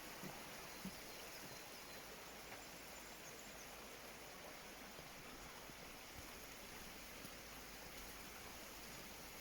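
Faint, steady rush of flowing water, with a couple of soft knocks about a second in.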